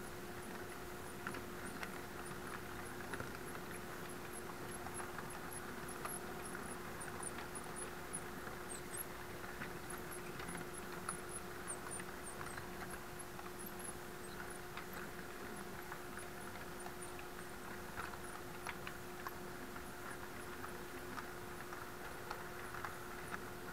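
HO-scale model passenger train rolling past: the wheels click irregularly over the rail joints over a steady hum, with faint high-pitched chirps.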